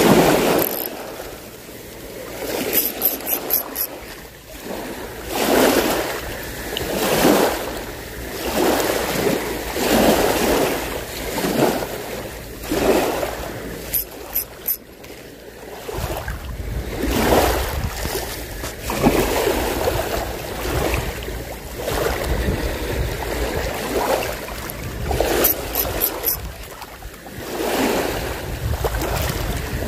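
Small waves repeatedly washing in on a sandy beach, each wash swelling and fading every second or two. From about halfway through, wind buffets the microphone with a low rumble.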